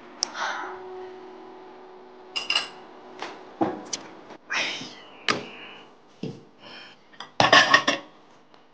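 Crockery and chopsticks clinking and knocking as dirty dishes are cleared, with a louder clatter near the end as a bowl, plate and chopsticks go into a stainless steel sink.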